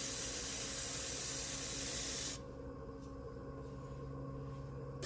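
Electric pottery wheel running with a steady hum while a wooden knife held against the base of a freshly thrown clay spoon rest rubs with a hissy scrape as the piece spins, lifting its edge. The scraping hiss cuts off about two and a half seconds in, leaving the wheel's hum.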